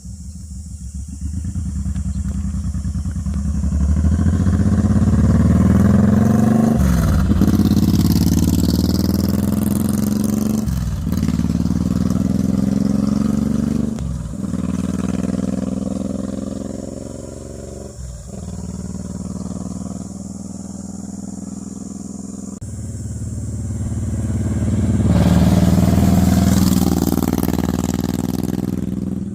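Suzuki M109R's large V-twin engine pulling through the gears: its pitch climbs and drops sharply at each upshift, four shifts in a row, then climbs again. A high steady buzz of cicadas sits above the engine, strongest near the end.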